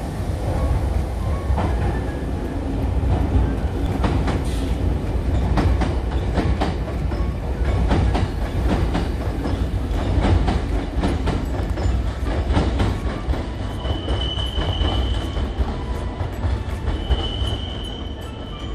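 Senboku Rapid Railway 12000 series electric train running over the station's switches and curves, with a steady low rumble and repeated wheel clacks over rail joints and points. A high wheel squeal sounds twice in the last third as the wheels take the curves.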